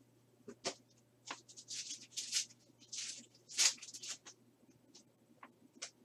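A foil trading-card pack being torn open and crinkled by hand. A couple of sharp clicks come first, then about three seconds of crackly rustling, loudest near the middle, and a few light ticks near the end.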